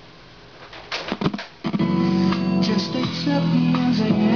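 Music played through a home speaker driven by the left channel of a Zapco AG350 car amplifier under test. It starts about a second and a half in after a faint hum and a few sharp pops.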